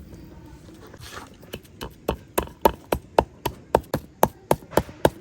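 A blade chopping with sharp, evenly spaced strokes, about four a second, starting about a second and a half in.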